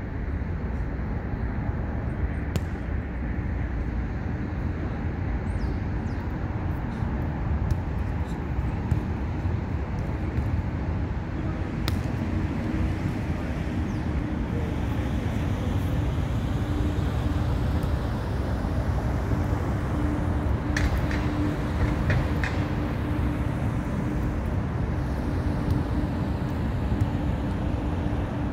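Steady low rumble of road traffic on the elevated highway overhead, with a droning engine tone joining in about twelve seconds in and a few short sharp taps near the end.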